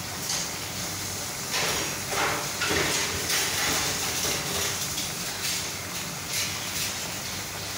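Bitter melon and egg frying in a stainless steel pan on a gas stove: a steady sizzling hiss that grows louder and rougher for a couple of seconds about a second and a half in.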